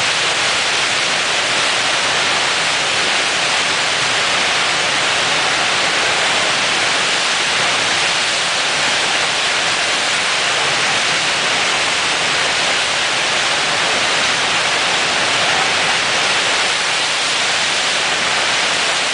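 Fast river water rushing steadily through the Eisbach's standing wave: an unbroken hiss of churning whitewater.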